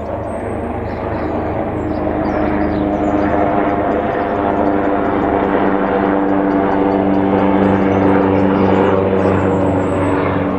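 AgustaWestland AW139 twin-turboshaft helicopter in flight close by: the steady beat of its five-blade main rotor over the turbine noise, growing a little louder towards the last third and easing slightly near the end.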